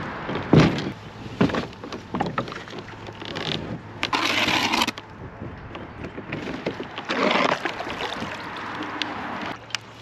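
A plastic sit-on-top fishing kayak being launched: sharp knocks and scrapes from the hull as it is slid off the bank into the river in the first couple of seconds, followed by splashing rushes of paddle strokes in the water.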